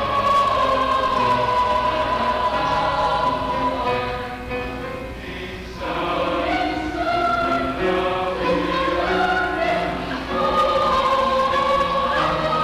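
A choir singing a slow ballad in Tagalog, several voices holding long notes in harmony. The phrase ends and the singing dips about four to five seconds in, and a new line begins about six seconds in.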